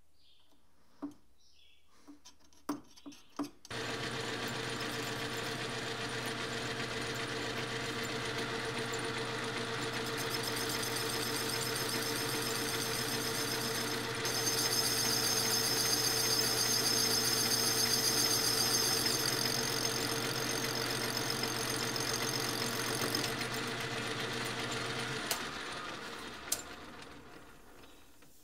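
A few light clicks, then a metal lathe starts and runs with a steady hum, spinning the tapping head's clutch shell against a cutting tool. From about halfway a high, bright cutting hiss joins in as the tool takes a cut on the shell. Near the end the hiss stops and the lathe winds down.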